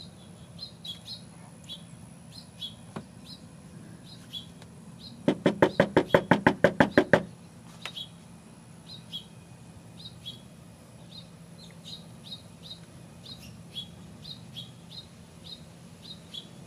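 A fast run of about a dozen loud knocks on a door, lasting about two seconds and starting about five seconds in. Small birds chirp over and over throughout.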